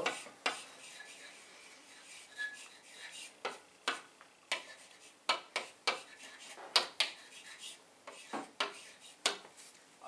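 Chalk writing on a blackboard: an irregular string of sharp taps and short scratches as each stroke of the letters is written.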